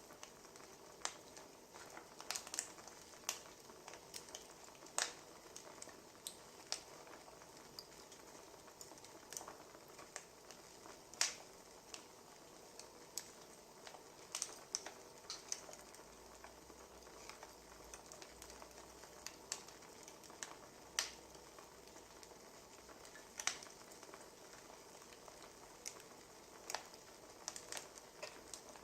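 Wood fire crackling: irregular sharp pops and snaps of burning firewood over a soft steady hiss.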